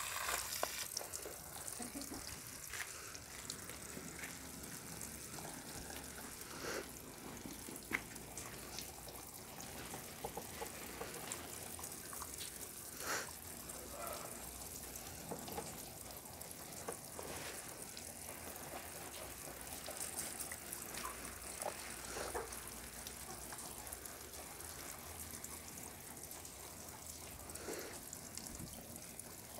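Water trickling and dripping as potted plants are watered: a steady hiss with scattered drips.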